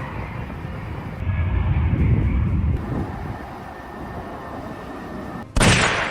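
A low, steady engine rumble. Near the end it is broken by a sudden loud rushing burst about half a second long.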